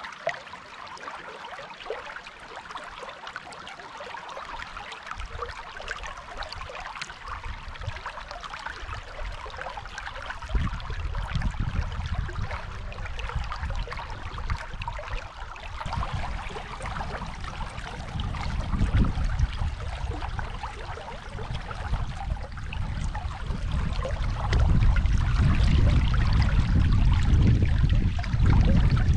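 Steady rush of water from the Dunajec river, with a low rumble underneath that swells about a third of the way in and is loudest in the last few seconds.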